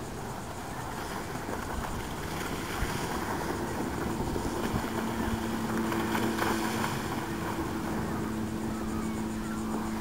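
The Yamaha 40 hp four-stroke outboard on a 12-foot rigid inflatable runs at speed past the listener with a steady hum. It grows louder to a peak about six seconds in as the boat passes closest, over steady wind noise on the microphone.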